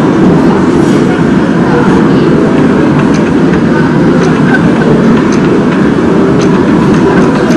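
Loud, steady background din of a restaurant dining room, with a few faint light clicks.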